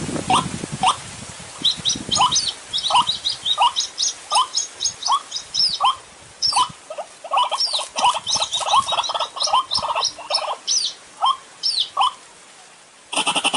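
White-breasted waterhen calling: a long run of short, repeated rising notes, about two to three a second, with higher squeaky notes over them through much of the stretch. The calling thins out near the end.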